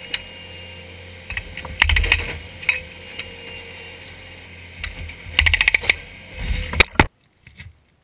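Skid steer loader's engine running steadily while its hydraulic breaker hammers concrete in short bursts of rapid blows, about two seconds in and again between five and six seconds. The sound cuts off suddenly near the end.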